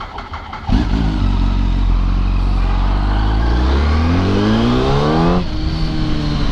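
Yamaha R1 sport bike's inline-four engine pulling away hard, about a second in: the revs climb steadily for about four seconds, then fall abruptly near the end and it carries on at a steady lower note.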